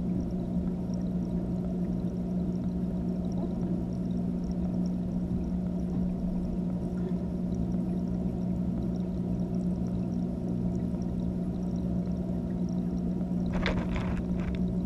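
Steady low hum of running aquarium equipment, heard underwater through a GoPro's waterproof housing. A few short knocks near the end as the camera is moved.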